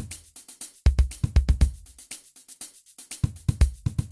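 Background music: an electronic track with a steady drum-machine beat and deep bass that drops out and comes back in.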